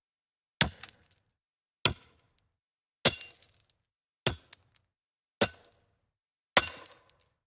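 Logo-intro sound effect: six sharp hits, about one every 1.2 seconds, each ringing briefly before dying away, with silence between them.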